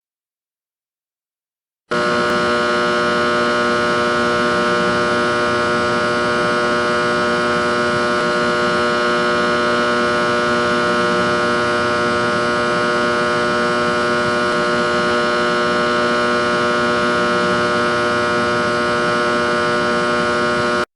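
Electrical box humming and buzzing with steady mains hum, full of evenly spaced overtones. It starts suddenly about two seconds in, holds unchanged, and cuts off abruptly near the end.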